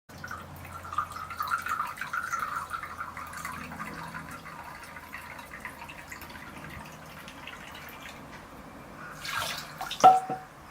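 Shishi-odoshi bamboo water fountain: water trickling and dripping into the bamboo tube, then near the end a short splash as the tube tips and empties, followed by a single sharp knock of the bamboo striking the stone with a brief ring.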